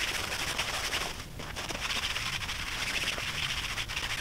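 Damp microfiber cloth rubbing across nylon tent fabric, a steady scrubbing swish with a short break about a second in, as soap residue is wiped off.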